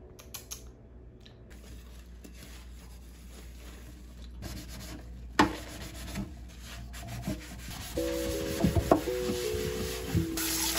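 Dishes being scrubbed with a sponge brush at a stainless steel kitchen sink: a steady rubbing and scraping that grows louder over the last few seconds.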